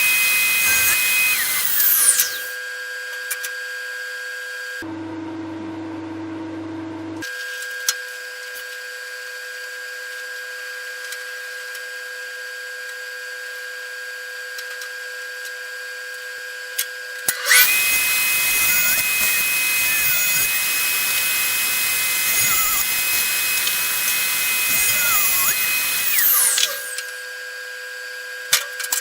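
Axminster TS-250M-2 table saw running steadily, cutting through wood twice: once at the start and again in a long cut from about 17 to 26 seconds in. The first cut ends about 2 seconds in, and the saw runs free between the cuts and after the second one. About five seconds in, the saw sound briefly gives way to a different low hum.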